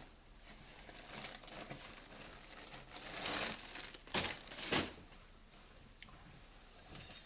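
Plastic snack packaging crinkling as it is handled, in a run of rustling bursts, loudest about three to five seconds in, with a short rustle near the end.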